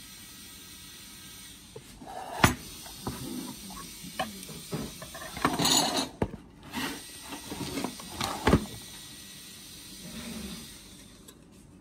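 Parts of a Zebra ZT410-series label printer being handled during an RFID kit install: a string of sharp clicks and knocks, loudest about two and a half seconds in and again near eight and a half seconds, with a short rustle in between. A steady hiss runs under the quiet stretches.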